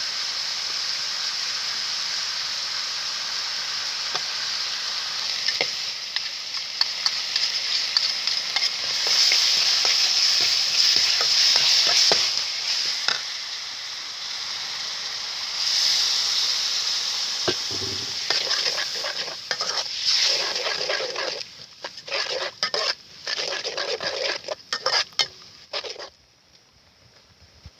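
Chicken sizzling as it fries in a hot pan while being stirred, with scattered clicks and scrapes of the utensil against the pan. Near the end the sizzle breaks into short bursts and then dies away.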